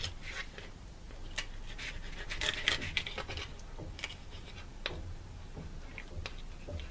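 Knife cutting a whitefish fillet away from the backbone through the rib bones: faint scattered clicks and scrapes, busiest a little past the middle.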